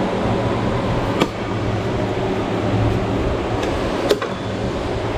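Steady hum of a large electric shop fan, with two sharp clicks, about a second in and about four seconds in, as the motorcycle's rear fender and tail-light assembly is pried loose by hand.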